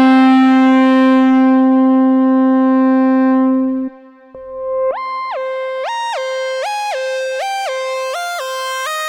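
Moog Subsequent 25 analog synthesizer playing a bright lead sound: a long held note that fades away about four seconds in, then after a short gap a repeating line that leaps up an octave and back down, with short glides between the notes.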